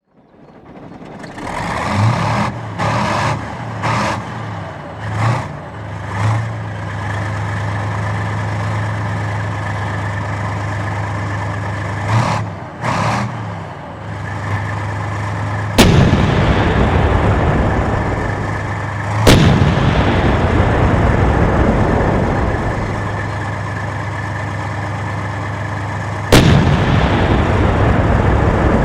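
Tank engine starting and revving in several short bursts, then settling into a steady heavy idle. Three loud cannon shots go off over it, each with a long rumbling tail.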